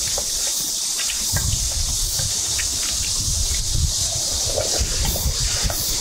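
Dense chorus of cicadas droning steadily at a high pitch, with a low rumble of wind on the microphone beneath it. Spoons and chopsticks give scattered light clinks against stainless steel bowls.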